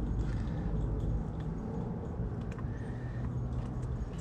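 Faint clicks of small plastic parts being handled as a tube is fitted back onto a toilet-style pool fill valve, over a steady low background hum.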